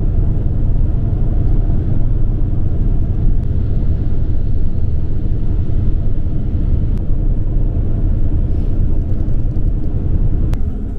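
Steady low engine and road rumble of a bus on the move, heard from inside the cabin.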